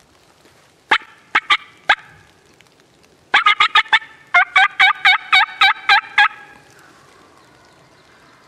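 Hen turkey calling made by mouth, close and loud: four sharp clucking notes about a second in, then a fast run of about fifteen yelps from about three to six seconds in. It is a call meant to work up a hen that has a tom with her.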